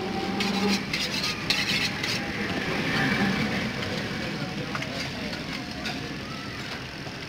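Butcher's knife slicing and scraping through raw beef on a wooden chopping log: a quick run of short rasping strokes in the first two seconds, then a softer scrape. Underneath is a steady market background with faint voices.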